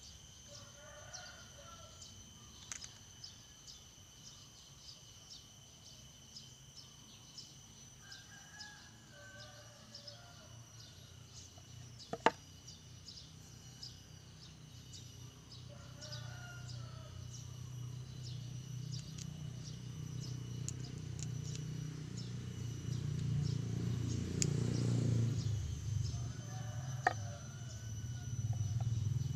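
A rooster crowing four times, several seconds apart, over a steady high insect trill. There is a single sharp click near the middle, and a low rumble builds through the second half.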